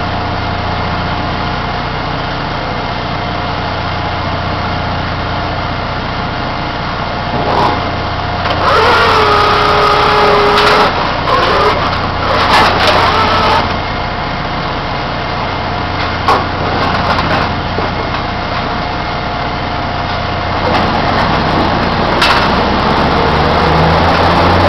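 Drilling rig floor during a drill-pipe connection: the rig's engines run with a steady hum while pipe-handling equipment clanks now and then. A wavering squeal comes in a louder stretch about a third of the way through, and the engines rise in pitch near the end.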